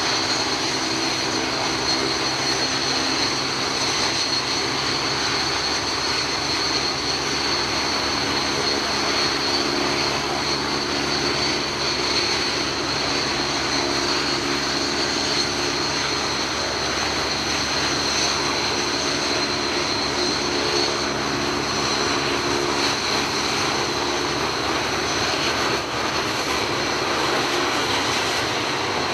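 Several BAE Hawk T1 jet trainers taxiing. Their Rolls-Royce Turbomeca Adour turbofans run at taxi power with a steady high whine over an even rush.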